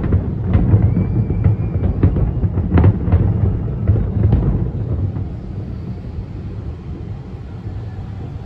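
Fireworks exploding in a rapid barrage of booms and bangs over a continuous low rumble. The bangs thin out about five seconds in, leaving a quieter rumble.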